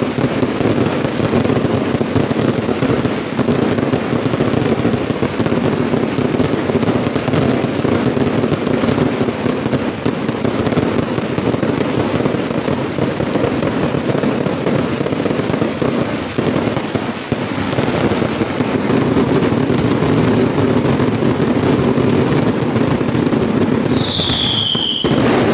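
Firework shells and firecrackers bursting in a dense, unbroken barrage of rapid bangs and crackling. A short, high, falling whistle comes near the end.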